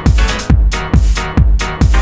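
Techno music: a steady four-on-the-floor kick drum, a little over two kicks a second, each kick dropping quickly in pitch, under dense synth and percussion layers.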